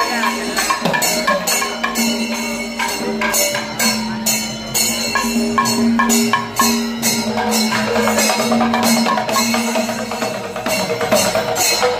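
Kerala temple percussion ensemble playing the kalasam, the fast closing climax of the performance: drums struck in a dense rhythm with small cymbals clashing over a long held note.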